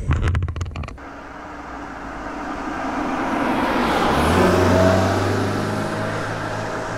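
Vehicle drive-by sound effect: engine and road noise swelling to a peak about five seconds in and then fading, with a steady low engine hum coming in from about four seconds. A few sharp clicks come in the first second, before the sound effect starts.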